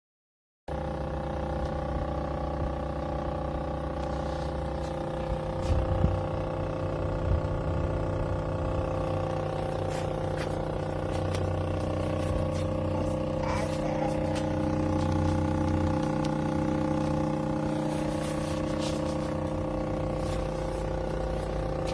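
An engine running at a steady speed: a constant low hum with steady tones, and a few scattered clicks and knocks over it.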